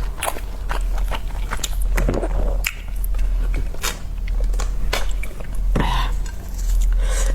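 Close-miked chewing of large thin-skinned steamed dumplings: many short, wet mouth clicks and smacks, with a few swallows.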